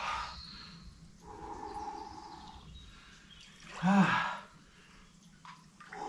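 A man's wordless vocal sounds: a drawn-out moan from about one to two and a half seconds in, then a short, loud cry about four seconds in.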